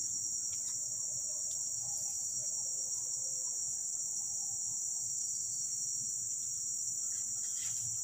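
Steady, unbroken high-pitched drone of a forest insect chorus (crickets or cicadas).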